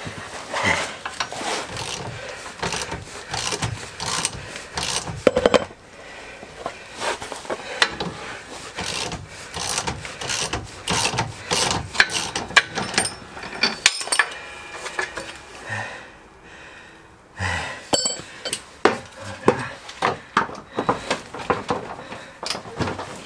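Hand tools clinking, knocking and scraping on metal car suspension parts, with irregular sharp metallic clicks and a short lull about two-thirds of the way through.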